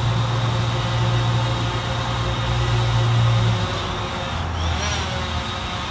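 DJI Phantom 4 quadcopter drone hovering, its propellers giving a steady hum made of several tones. The hum drops a little in pitch about two-thirds of the way in as the drone is repositioned.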